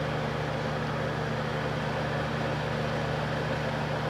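Vintage Emerson Quiet Kool Frost Sentry 22 dehumidifier running in heater mode: its fan blowing warm air with a steady, even hum.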